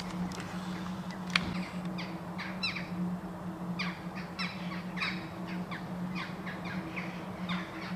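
Repeated short, high squeaking calls from small animals, each falling in pitch, several a second, over a steady low hum; a single sharp click sounds about a second and a half in.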